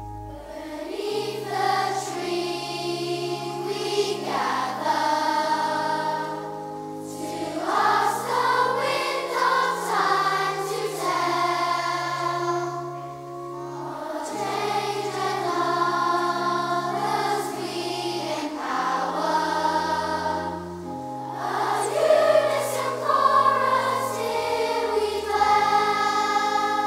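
Children's choir singing over held pipe organ chords, the voices swelling and easing in phrases every few seconds.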